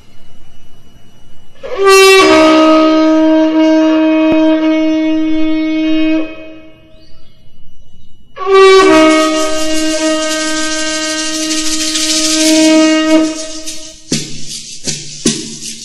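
A wind instrument plays two long, held, horn-like notes, each starting slightly higher and settling onto a lower pitch, with a short gap between them. Near the end, sharp rhythmic strikes begin as the accompaniment starts.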